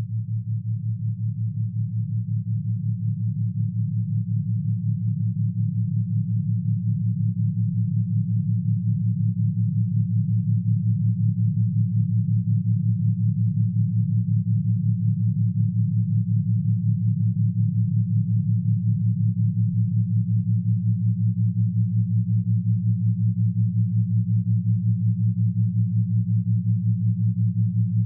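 Low electronic sine-tone drone of a brainwave-entrainment track for pineal gland activation: two steady low pitches pulsing evenly several times a second, swelling slowly louder over the first ten seconds or so.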